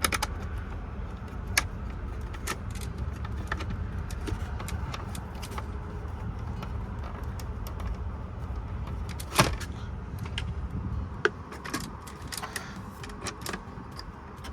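Scattered light clicks and taps of a screw and screwdriver working into a plastic dash panel, with two sharper knocks about nine and eleven seconds in, over a steady low rumble.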